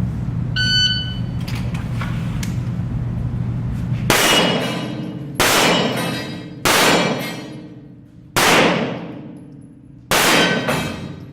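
Five pistol shots, a second or two apart, each followed by a long ringing decay. They come after a short beep near the start and a steady low hum.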